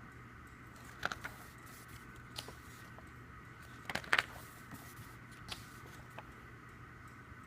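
Album packaging being handled: a few short, soft clicks and rustles of paper and plastic, the loudest about four seconds in, over a faint steady hum.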